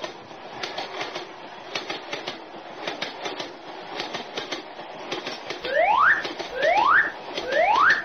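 Cartoon train sound effect: a rumbling run of wheel clicks over the rails. Near the end come three quick rising whistle-like glides, a little under a second apart, louder than the train.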